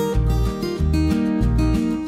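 Background music with a steady beat of low bass notes under held chords.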